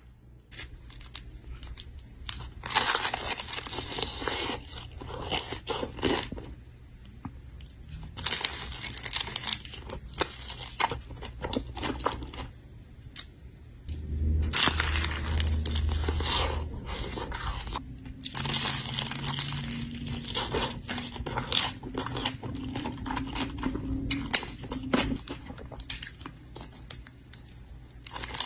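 Close-miked mukbang eating sounds: bites into crunchy food and chewing, with food packaging crinkling and tearing, coming in bursts a few seconds long with short quieter gaps.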